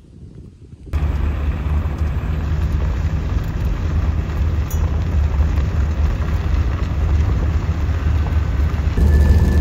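Steady low rumble of a vehicle driving on the road, with engine and road noise, starting abruptly about a second in.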